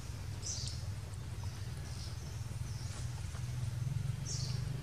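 Outdoor ambience: a steady low rumble with four short, high chirps spread through it.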